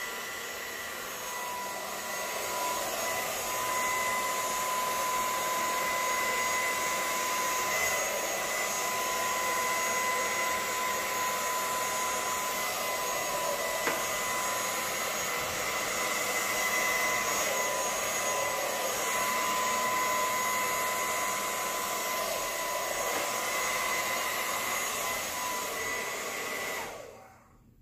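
Hair dryer running steadily with a high motor whine, blowing air across wet acrylic paint on a canvas; it is switched off and cuts out suddenly near the end.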